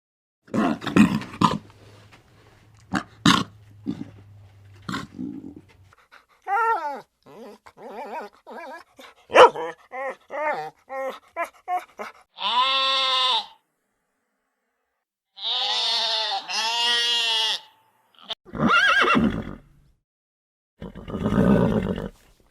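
A string of separate animal calls and cries from several different animals, each cut off by a short pause: some short clicks and grunts first, then a quick run of short pitched calls, then a few longer pitched calls.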